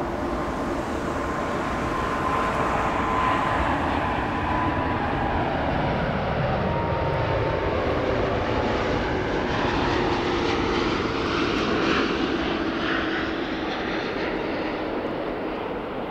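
Airbus A340-500 on final approach, its four Rolls-Royce Trent 500 turbofans making a steady jet roar with a high whine. The whine and the lower engine tones drop in pitch about halfway through as the airliner goes by.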